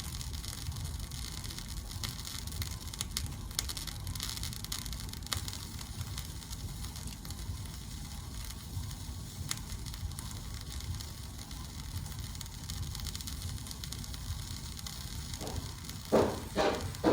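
Cheese-filled flatbread sandwich sizzling and crackling softly as it toasts on the heat, over a low steady hum. Near the end a few sharp knocks or steps begin.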